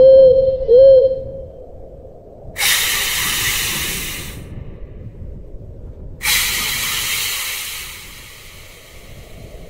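Two bursts of loud hissing, each about two seconds long, the second trailing off slowly. They follow a short electronic warbling tone at the start.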